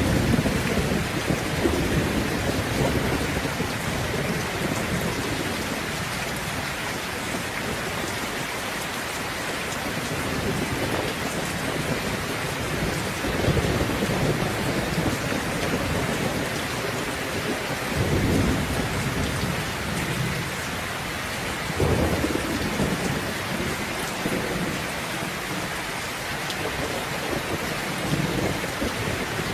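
Steady heavy rain hissing, with rolls of thunder rumbling at the start and again around 13, 18 and 22 seconds in.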